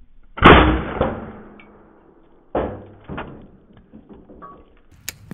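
Gamo TC35 .357 big-bore PCP air rifle firing a single loud shot about half a second in, the report ringing out over a second or so. Two fainter sharp knocks follow a couple of seconds later.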